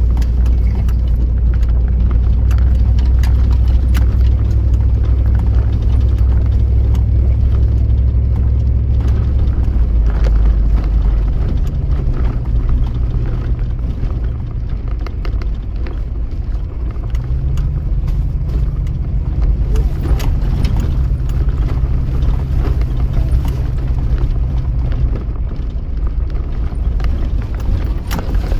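Vehicle engine and drivetrain droning low inside the cab while driving a rough dirt track, the pitch stepping down and up a few times with changes of speed. Frequent short knocks and rattles from the bumpy ground come through.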